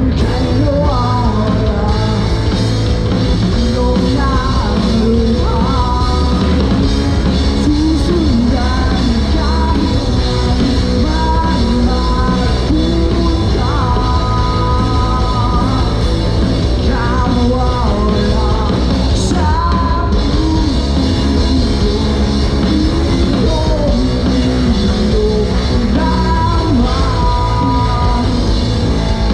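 A live rock band playing loudly, with a singer's voice over electric guitars, bass and drums.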